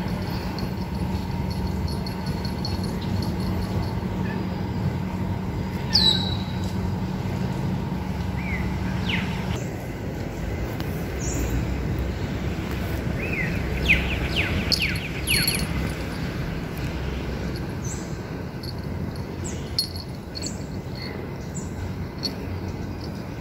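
Birds chirping outdoors, with a run of short, quickly falling high chirps near the middle, over a steady low hum that stops about ten seconds in.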